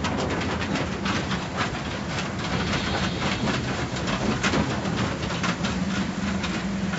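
Car wash in operation: a steady rushing hiss with rapid, irregular clatter, over a low hum that fades in the middle and returns near the end.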